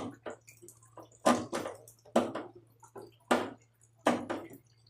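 Five sharp metallic knocks and clanks, spaced about a second apart, from tools and parts striking the washing machine as it is taken apart, over a faint steady low hum.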